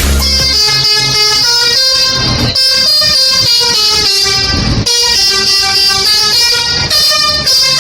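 Bus 'telolet' multi-tone air horn playing a quick melody, its notes stepping up and down every fraction of a second, with short breaks about two and a half and five seconds in.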